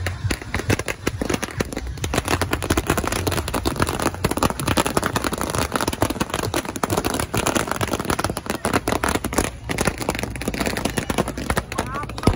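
Firecrackers and fireworks packed into a burning Ravana effigy's bamboo frame going off in a dense, unbroken barrage of cracks and bangs.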